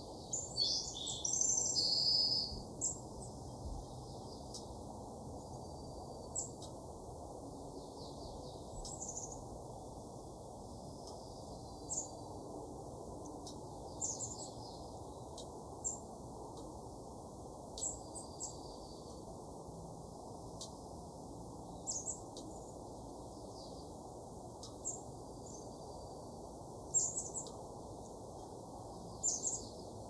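Small songbirds chirping: short, high chirps every second or two, with a busier run of twittering in the first few seconds, over a steady low background noise.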